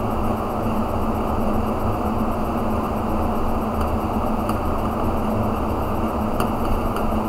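A steady low mechanical hum with a constant tone, with a couple of faint clicks near the middle and toward the end.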